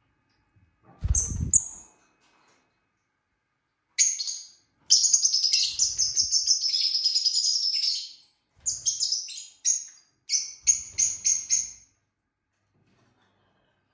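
Lovebird chirping: a few short, high chirps with a low thump about a second in, then a long run of rapid, shrill chirping lasting about four seconds, followed by several shorter bursts of chirps.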